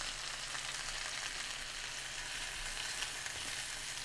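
Sliced cabbage and onions sizzling in a hot nonstick skillet as the cabbage wilts down: a steady frying hiss with a few faint clicks.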